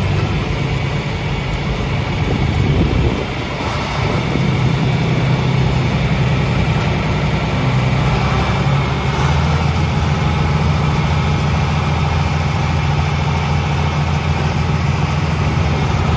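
Tractor engine running steadily, with a short dip in level about three seconds in before it settles back.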